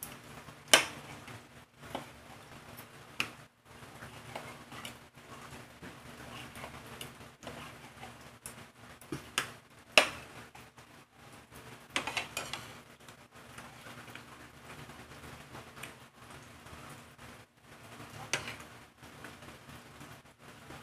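Metal fork and knife clinking and scraping against a ceramic plate while cutting a sausage into pieces: irregular sharp clicks, the loudest about a second in and about ten seconds in, with a short run of them around twelve seconds. A faint steady hum sits underneath.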